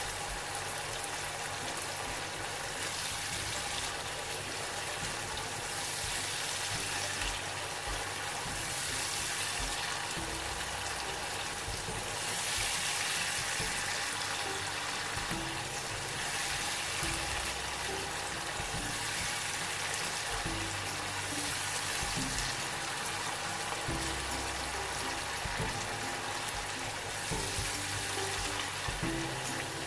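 Masala of tomato and onion sizzling as it fries in a pan while being stirred, the hiss swelling every few seconds, with soft background music underneath.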